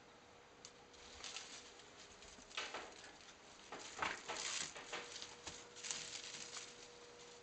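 Bengal kitten scuffling on a plush cat tree and batting a foil tinsel wand toy: faint, irregular rustles and scratches, busier and louder in the second half.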